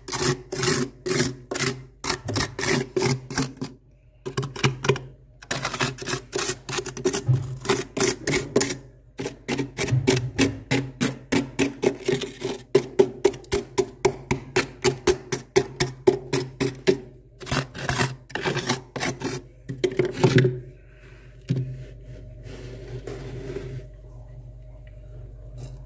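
Hand scraping packed freezer frost in quick repeated strokes, about four a second, with brief pauses. The scraping stops about twenty seconds in, leaving a low steady hum.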